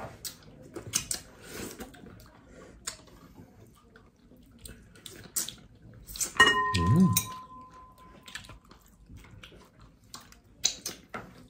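Close-up eating sounds of boiled crab and shrimp: wet smacking, sucking and squishing as the crab fat is picked out of the shells with fingers, with many short clicks. A bit past halfway a hummed 'mm' and a steady high tone of about two seconds rise above them.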